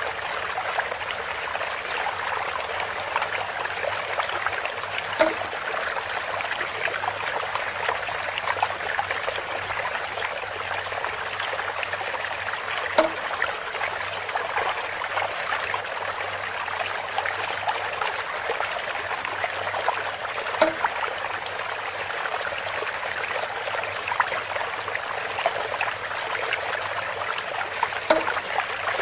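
Water trickling and splashing steadily from a bamboo spout, with a short knock roughly every seven to eight seconds, four in all.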